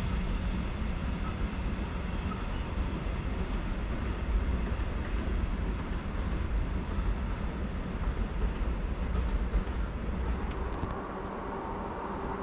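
Freight train running past with a steady low rumble of wheels on rail; the rumble drops away about a second before the end.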